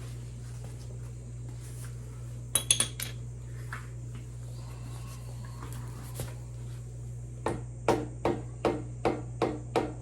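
Metal-on-metal hammer taps driving the front axle out of a 2006 Harley-Davidson Road Glide's forks: a few quick metallic clinks about two and a half seconds in, then from about seven seconds a steady run of taps, roughly two and a half a second.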